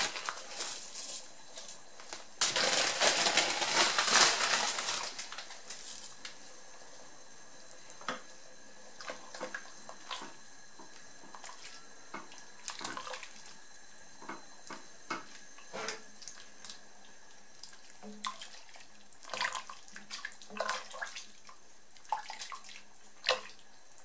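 Soup broth sloshing in a stainless steel pot as a silicone spatula stirs noodles in, with light scrapes and taps of the spatula against the pot. The sloshing is loudest for a couple of seconds a few seconds in, then gives way to scattered short stirring strokes.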